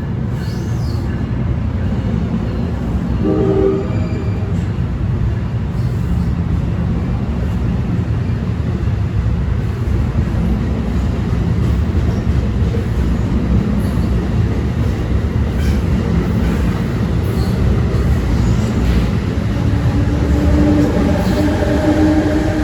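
Passenger train passing on the rails with a continuous rumble. A short horn blast sounds about three and a half seconds in, and a steady tone rises out of the rumble near the end.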